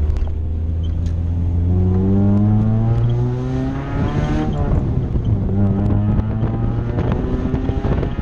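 1992 Honda Civic hatchback's four-cylinder engine accelerating. The revs climb for about four seconds, drop at an upshift, then climb again in the next gear.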